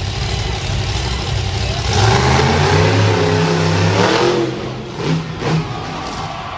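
Tiger Shark monster truck's engine revving hard as the truck accelerates. It is loudest for a couple of seconds in the middle, drops back, then gives two short blips of throttle.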